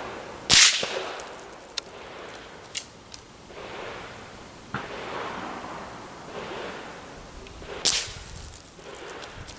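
Two sharp cracks of a Tikka T1x bolt-action .22 LR rifle firing, one about half a second in and a second just before the end, each with a short echoing tail. Fainter clicks come between them.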